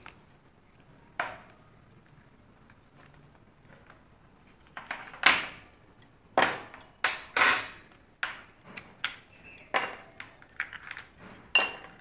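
Ice cubes being popped out of a plastic ice cube tray and dropped into a glass: a single click about a second in, then from about five seconds on a quick run of sharp cracks and clinks.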